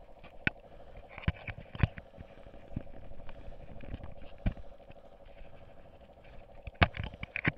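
Handling noise from fingers adjusting a helmet-mounted action camera: scattered clicks and knocks, loudest about two seconds in and again near the end, over a steady hum.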